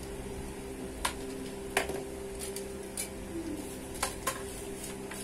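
Several sharp clicks and clacks of a ring light's tripod stand being handled and its parts fitted together, spread irregularly through a few seconds, over a steady low hum.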